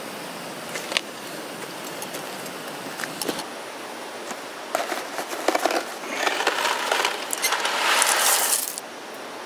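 Primus canister gas stove burning with a steady hiss after being turned up. From about five seconds in, louder rustling and crackling as a packet is handled and emptied into the pot.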